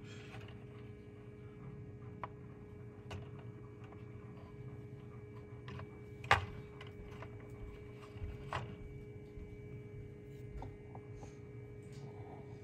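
Steady electrical hum from an egg incubator with a candling light on its lid, with scattered light clicks and knocks as eggs and fingers handle its plastic top; the sharpest knock comes about six seconds in and another about two seconds later.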